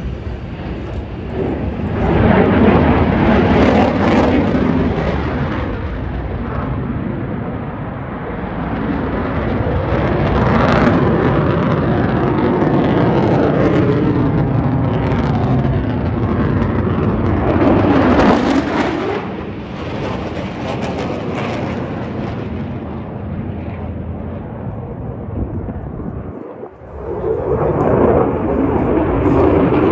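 Very loud jet noise from an F-35C Lightning II's single Pratt & Whitney F135 afterburning turbofan, a dense rushing sound that swells and fades several times. It drops sharply for a moment about 26 seconds in, then swells again.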